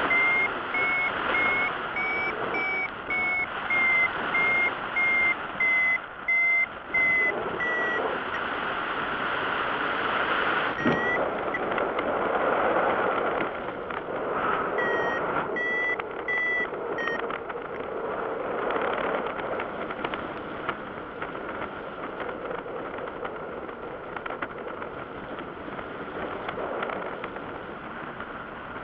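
Paragliding variometer beeping in short repeated beeps, about one and a half a second, its pitch rising a little then falling, the sign that the glider is climbing in lift. The beeping stops about eight seconds in, returns with one beep and then a short run of beeps, while wind rushes over the microphone throughout.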